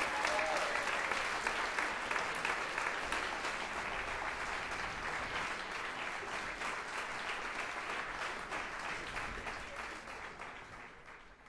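Concert audience applauding, fading away near the end.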